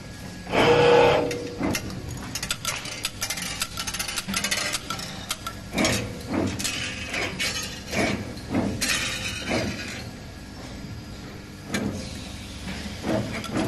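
NER3D-7 3D CNC wire bending machine at work, feeding and bending steel wire: mechanical running with repeated irregular clunks and clinks from the bending head. The loudest clunk comes about a second in, and there is a second-long hiss about nine seconds in.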